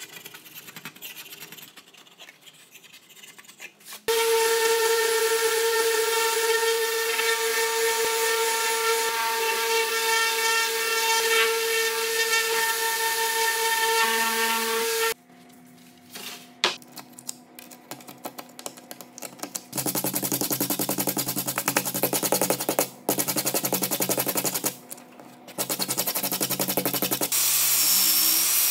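A knife scraping filler into a wood slab, then a Festool random orbital sander running steadily on the slab with a steady whine. It stops suddenly after about eleven seconds. Later another power tool sands in loud stretches with short breaks, and near the end a rotary tool with an abrasive brush pad spins against the wood with a high whine.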